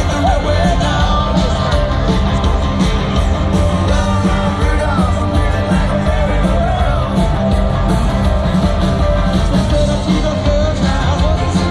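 Live rock and roll band playing through a PA, with a singer's voice over the drums, bass and guitars.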